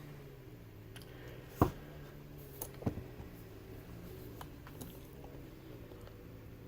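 A few light clicks and taps from a laptop being handled, the loudest about a second and a half in, over a steady low hum.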